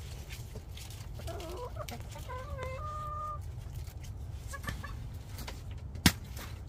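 Hens clucking, a string of short pitched calls through the first half with a few more later. A single sharp click near the end is the loudest sound.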